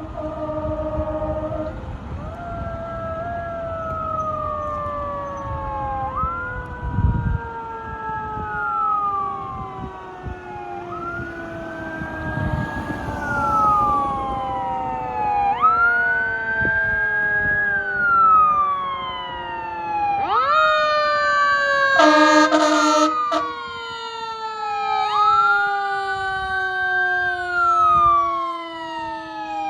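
Fire engine sirens: one siren wails up and down about every two to three seconds over a second, lower siren tone that slides slowly down. There is a short air horn blast at the start and a louder air horn blast of a second or so about 22 seconds in.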